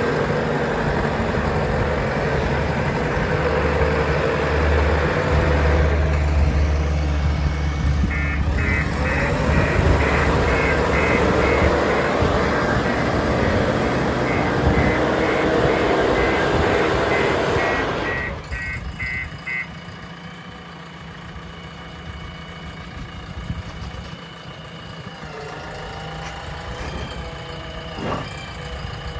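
JCB 3DX backhoe loader's diesel engine running hard with rising and falling revs while its reversing alarm beeps from about eight seconds in. At about eighteen seconds the engine drops to a quieter idle and the beeping stops soon after.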